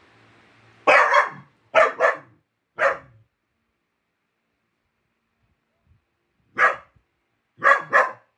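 Dachshund barking at a baby gate to be let out: a run of sharp barks, some in quick pairs, about a second in, a pause of some three seconds, then more barks near the end.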